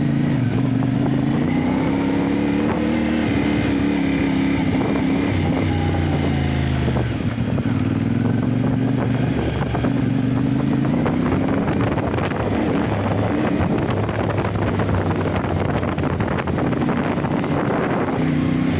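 Motorcycle engine running under way, its pitch rising and falling again and again as the throttle changes, with wind noise over the microphone.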